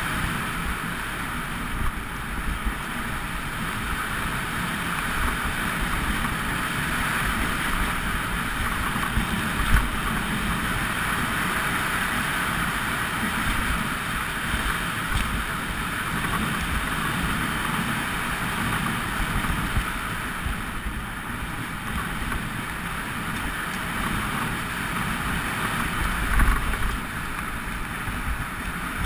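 Mountain bike riding down a dirt singletrack, heard through a GoPro Hero2's microphone: a steady rush of wind and tyre noise with a low rumble, and now and then a knock or rattle from a bump in the trail, the biggest about ten seconds in and again near the end.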